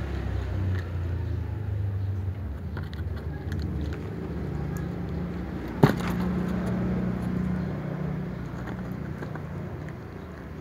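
Cats crunching dry kibble, heard as faint scattered clicks, over a steady low engine hum that shifts up in pitch about halfway through. A single sharp click about six seconds in is the loudest sound.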